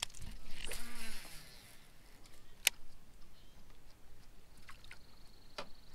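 A cast with a low-profile baitcasting reel: a click, then the spool whirring as line pays out for about a second, and a sharp click a couple of seconds later. Near the end a few light reel clicks come as the retrieve begins.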